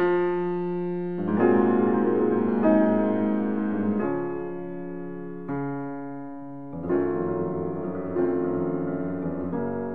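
Background music of slow piano chords, a new chord struck about every second and a half and fading away before the next.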